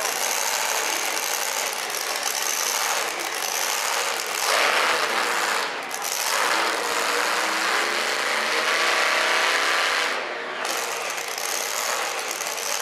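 Modified pulling truck's engine running loud and rough, its revs shifting up and down around the middle.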